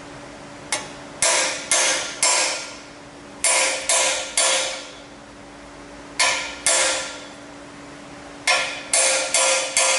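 Hammer striking a bearing driver to drive a new axle bearing into the axle tube of a Ford 8.8-inch rear end: sharp metallic blows, each ringing briefly, in groups of two to five with pauses between, coming quicker near the end.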